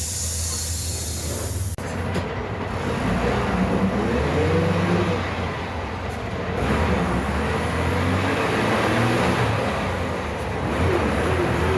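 Bus engine running under way, a CNG-converted MWM 6.10 TCA six-cylinder in a Volksbus 17.210 OD chassis, its speed rising and falling as the bus pulls and shifts. A hiss in the first two seconds cuts off suddenly.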